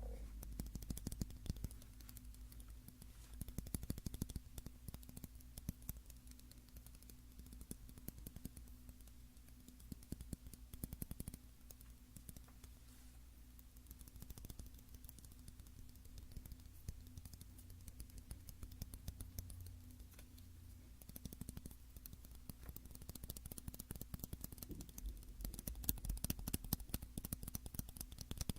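Fingernails tapping rapidly and lightly on a shoehorn: quick runs of small clicks, busier near the end.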